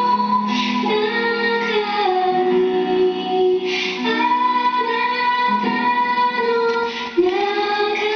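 A song: a woman singing a slow melody in long held notes over instrumental accompaniment.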